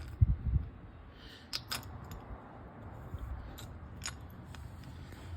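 Scattered light metallic clicks and clinks of a bump stop bracket and its hardware being handled and fitted together, with a couple of low knocks near the start.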